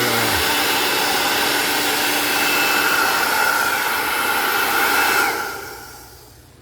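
Old hair dryer with its heating element removed, used as a blower, running with a steady whine; it is switched off about five seconds in and winds down.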